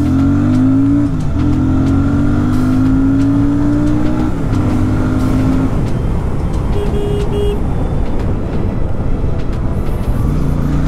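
Royal Enfield Super Meteor 650's 648 cc parallel-twin engine under full throttle in a 0–100 km/h acceleration run. The pitch climbs, with upshifts about one and four seconds in. After about six seconds, wind and road rush at speed mask the engine, and a short high beep sounds around seven seconds; the engine note returns lower near the end.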